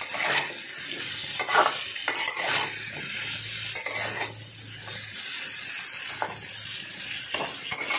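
Metal spatula scraping against a steel kadai, stirring pointed gourd and potato pieces frying in oil, with a steady sizzle underneath and irregular scrapes every second or so.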